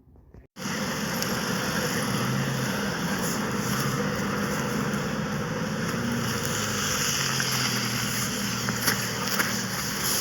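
An engine running steadily, starting suddenly about half a second in, with a low hum that drifts slightly in pitch under a broad hiss.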